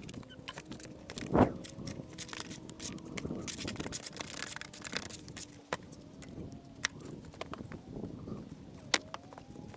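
Stonework sounds: irregular knocks, clicks and scrapes of stone and tools, with one loud knock about a second and a half in.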